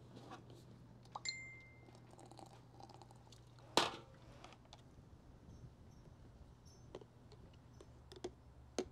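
Quiet handling of an AeroPress during brewing: a few light clicks and taps, the sharpest about four seconds in, and a short beep about a second in, over a faint steady low hum.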